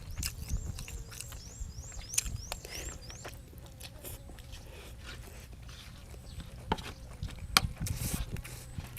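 A person chewing food close to the microphone, with scattered sharp clicks and wet smacks. Behind it, a quick run of rising high chirps, about four a second, stops about three seconds in.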